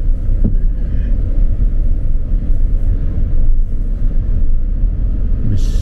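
Steady low rumble of a car driving along a street, road and engine noise with no distinct events.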